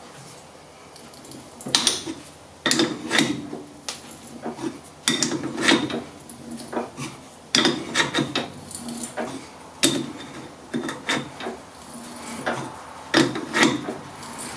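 A thread being hand-tapped into metal held in a lathe chuck, the tap handle worked round in strokes. It makes a series of irregular metallic clicks and clunks from the tap and handle.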